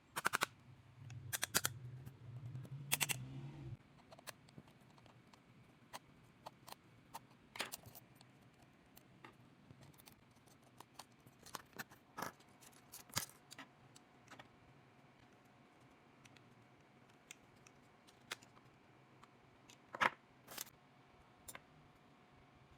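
Electric hair clipper humming low, switched off about four seconds in. Then scattered clicks and taps of the clipper and its blade being handled for cleaning.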